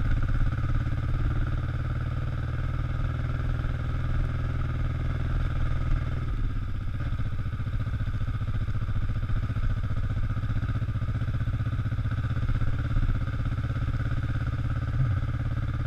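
Kawasaki EN500 motorcycle's parallel-twin engine running steadily under a rider at low speed, its note easing about six seconds in.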